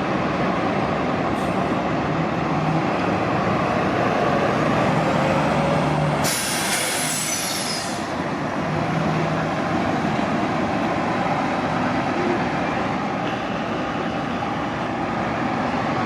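City transit bus running close by with a steady engine hum, and a burst of compressed-air hiss about six seconds in that lasts nearly two seconds, typical of a bus's air brakes.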